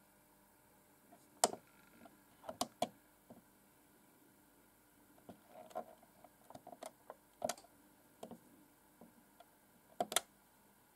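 Plastic push buttons on a clock radio clicking as fingers press and release them: a dozen or so scattered clicks and light taps, the loudest about a second and a half in, near three seconds, and twice more near eight and ten seconds.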